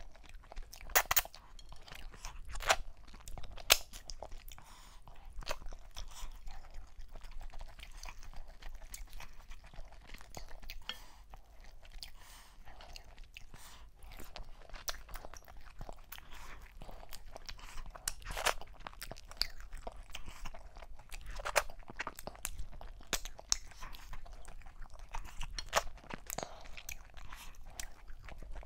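A person chewing and crunching close to a clip-on microphone, eating turkey meat and fufu in okra soup, with sharp crunchy clicks scattered throughout, the loudest about a second in and near four seconds.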